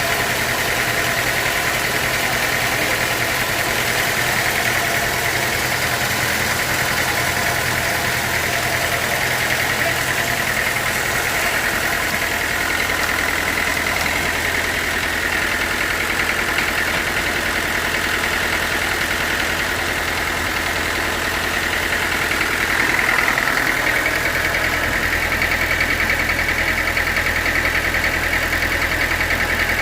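Sawmill machinery running steadily: an engine-driven saw's drone with a high whine. About 23 seconds in the low tone shifts and the sound grows slightly louder.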